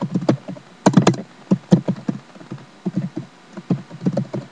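Typing on a computer keyboard: quick, uneven keystroke clicks, with a cluster of louder strokes about a second in.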